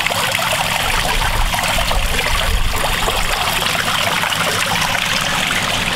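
Water steadily trickling and splashing into a koi pond, with a low steady hum underneath.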